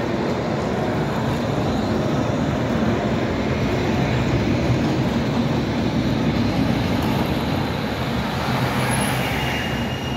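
Zagreb ZET TMK 2200 low-floor electric tram running past close by on street track: a steady rumble of steel wheels on the rails, a little louder in the middle as it goes by. A thin wheel squeal begins near the end.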